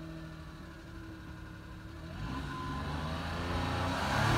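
1993 Suzuki Carry kei truck's small three-cylinder engine idling, then from about halfway through pulling away and coming closer, its revs rising and the sound growing steadily louder.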